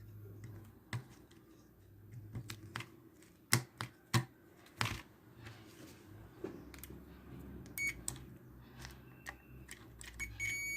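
Scattered small clicks, taps and knocks of parts and tools being handled on a workbench during reassembly of a TV power supply board. Near the end a steady high electronic beep starts.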